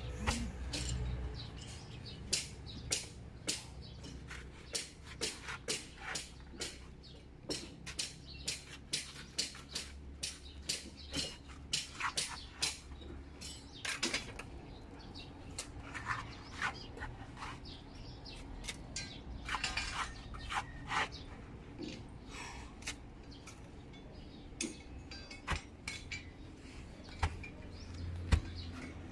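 Mason's trowel clicking and clinking against concrete hollow blocks and mortar as a block wall is laid: an irregular series of sharp taps, often one or two a second.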